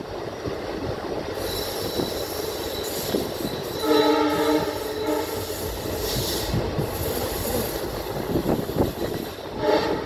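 Passenger train running on the rails with steady wheel and coach noise, and a blast of the EMD WDP-4D diesel locomotive's horn about four seconds in, lasting under a second.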